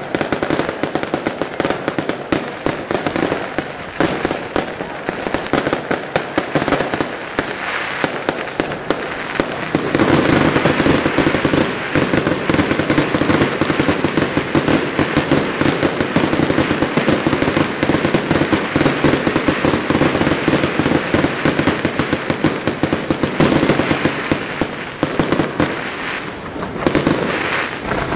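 Fireworks display firing a dense, continuous barrage of bangs and crackles. It grows louder and thicker about ten seconds in.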